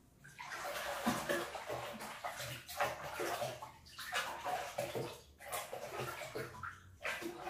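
Water sloshing and splashing in a glass aquarium as a hand scrubs the inside of the glass with a sponge, in repeated uneven strokes.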